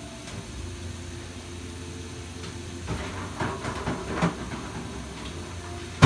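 Stovetop cooking on a gas stove: a steady hiss and low rumble from the burner under a wok of frying chicken and a lidded steamer pot, with a stretch of faint crackling about three seconds in. A sudden loud hit comes at the very end.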